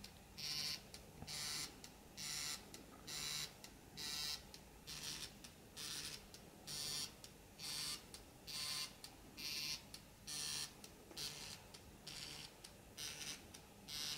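iPhone 6S Plus making a loud buzzing rattle from inside its case, in short, even bursts about once a second. The uploader puts it down to a fault in the taptic engine that shows when the phone is held vertically.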